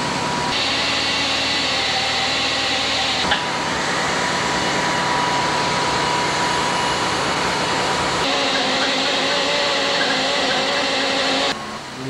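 Steady, loud rushing mechanical noise, like a running machine or blower, whose character changes abruptly three or four times.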